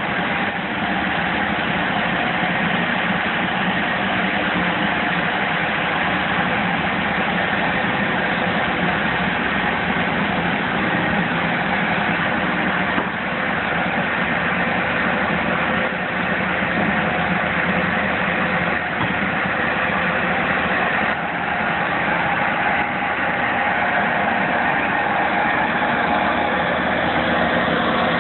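Tennant 7400 ride-on floor scrubber running as it scrubs, a steady mechanical drone that grows a little louder near the end.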